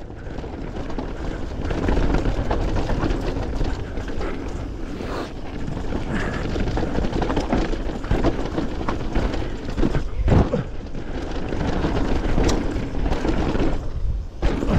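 Wind buffeting the microphone over the tyres of a Yeti 160E e-mountain bike rolling fast down a dirt trail, with frequent small clicks and rattles as the bike runs over bumps and roots.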